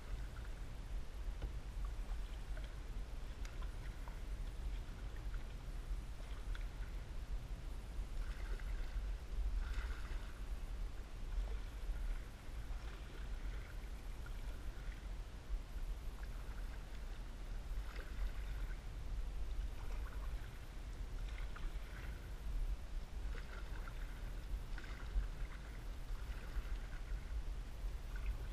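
Canoe paddle strokes: brief swishes and drips of water every second or two, over a steady low rumble.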